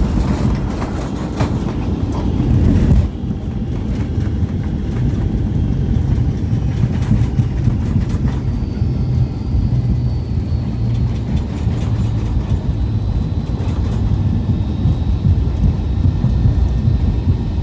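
Airliner landing, heard from inside the cabin: the wheels rumble and clatter on the runway with engine noise, louder for the first three seconds and dropping off sharply. A steady rumble follows, with a faint high whine slowly falling in pitch.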